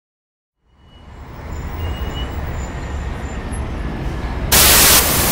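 Intro sound design: a low rumble fades in from silence over the first couple of seconds and holds. About four and a half seconds in, a sudden loud burst of static hiss lasts about half a second, a glitch transition effect.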